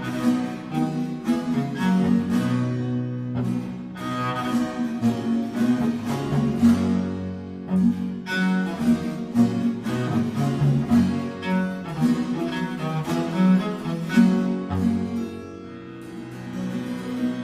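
Cello concerto: solo cello playing over a string accompaniment with harpsichord, fading down near the end.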